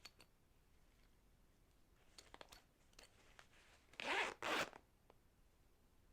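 A zipper being worked: a few faint ticks, then two quick zips in a row about four seconds in.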